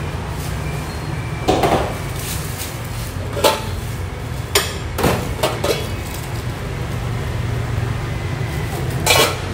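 White ceramic bowls clinking and knocking against each other and the stainless-steel counter as they are handled: several separate sharp knocks, loudest near the end, over a steady low hum.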